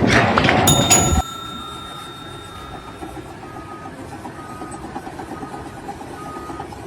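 A loud crash-like noise for about the first second, cutting off sharply, followed by a machine running steadily with a high beep that repeats on and off.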